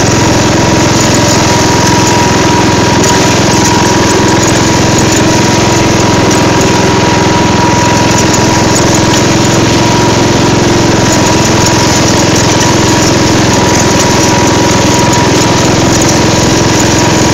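Riding lawn mower's engine running steadily under way over rough ground, with a thin steady whine over the engine note.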